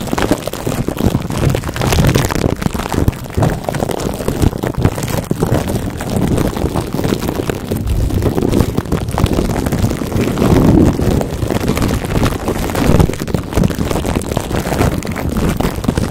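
Fingertips rubbing and scratching plastic wrap stretched over a microphone grille, right on the mic: a loud, dense, continuous crackling and rustling.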